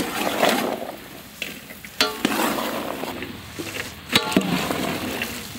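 Chopped okra being stirred with a metal ladle in a large basin of water: a steady wet swishing, with two sharp metallic clinks of the ladle against the basin about two seconds apart.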